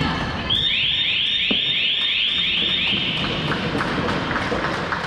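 Electronic game-clock signal of a floorball hall: a quick series of about seven rising electronic whoops lasting a couple of seconds. Light clicks from play on the court follow.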